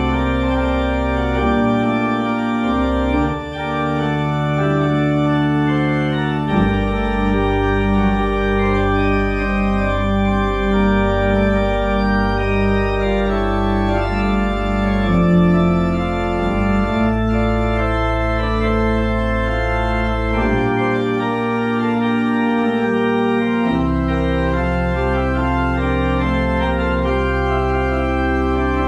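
Church pipe organ playing the postlude at the close of the service: sustained full chords over long-held pedal bass notes, with a stretch of pulsing repeated low notes in the middle and the deepest bass dropping out briefly about two-thirds through.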